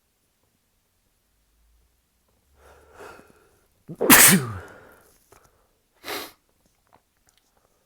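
A person sneezing during a sneezing fit. A breathy intake builds up, then one loud sneeze comes about four seconds in, its voiced tail falling in pitch. A shorter, noisy breath follows about two seconds later.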